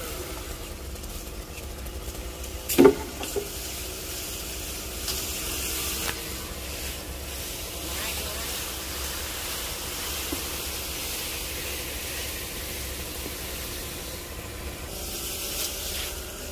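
Steady low hum and hiss of background noise, with one sharp, loud thud about three seconds in.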